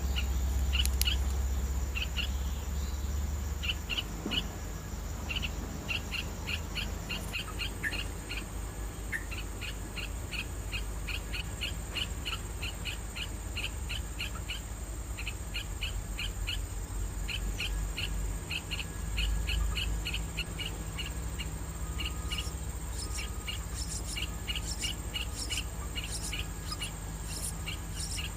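A bird giving short, high chirps over and over, often in quick pairs, with a low rumble in the first few seconds.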